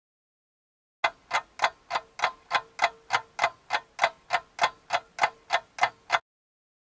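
Clock ticking, a steady run of sharp ticks at about three and a half a second, starting about a second in and cutting off suddenly near the end.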